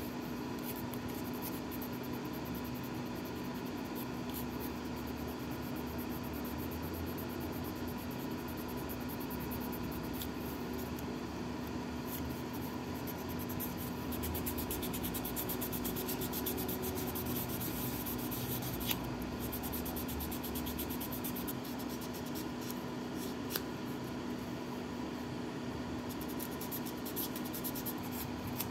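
Sandpaper rubbing against a small plastic model part in quick, fine scratchy strokes, over a steady background hum, with a couple of small clicks.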